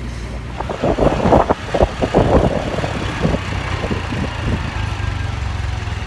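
Motorcycle engine running in street traffic, heard from the pillion seat. Through the first half it is louder and uneven; after that it settles into a steady low hum.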